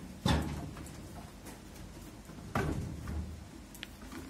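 Two dull plastic knocks, about two seconds apart, as a hand handles and lifts the RO membrane housing out of the filter rack of a water purifier.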